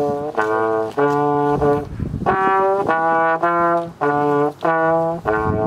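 Solo trombone playing a melody of separate held notes, about two a second, each ending in a short break before the next.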